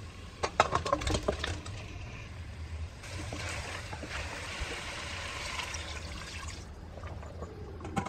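Raw chicken pieces tipped into a steel pressure cooker of masala, with a cluster of knocks against the pot in the first second or so. Then a few seconds of steady wet hiss as the chicken is mixed through the hot masala, cut off abruptly, and a sharp click near the end.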